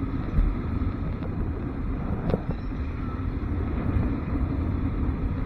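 Motorcycle riding along a city street: steady engine drone mixed with low wind rumble on the helmet microphone, with one brief click a little over two seconds in.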